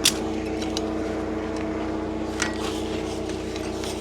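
Steady mechanical hum of several level tones, with a sharp click right at the start and a softer one about two and a half seconds in.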